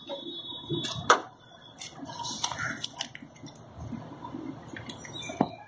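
Scattered light clicks and knocks, the sharpest about a second in and another near the end, over faint background noise.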